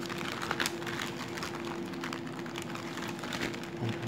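Clear plastic bag of cables rustling and crinkling in short handling noises as it is moved about, over a steady background hum.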